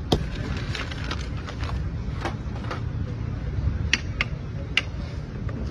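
Half a dozen scattered sharp clicks and clinks of a metal serving spoon against a steel momo steamer and its serving ware, over a steady low street rumble.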